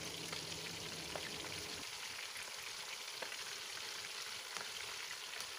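Oil sizzling steadily around minced-meat nargisi koftas shallow-frying over medium heat, with a few faint pops.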